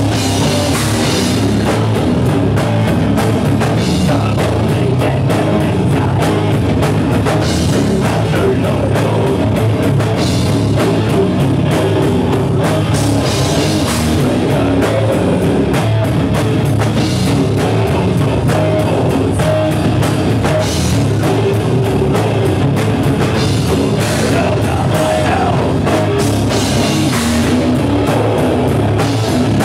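Metal band playing live: loud distorted guitars, bass and a drum kit with busy cymbals, and vocals at times.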